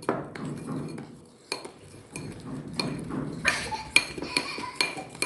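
A metal spoon stirring butter icing and pink food colouring in a bowl, scraping and clinking against the bowl's sides, with the ringing clinks coming quicker in the second half.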